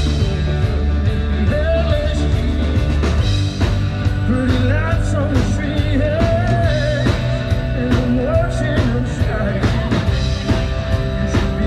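Live rock band playing over the stage speakers: a lead singer with acoustic guitar, a second guitar and a drum kit.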